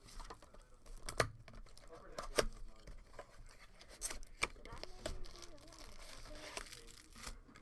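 Cardboard and plastic wrapping of a trading-card hobby box being torn open by hand: intermittent tearing and crinkling with sharp clicks and taps.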